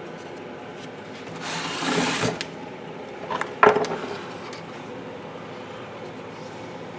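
A short rubbing or scraping stroke on the wooden clock case, then a few sharp knocks with a brief ringing clink, like a hand tool being handled or set down, over a steady background hum.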